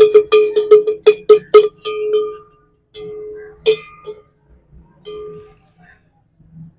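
Hanging metal bells being struck: a quick run of clangs, about four or five a second, for the first second and a half. Then a few single rings spaced out, each ringing on the same steady tone.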